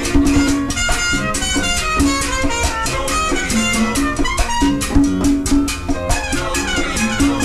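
Latin jazz band playing live: a trumpet playing a melodic line over a driving, steady percussion rhythm.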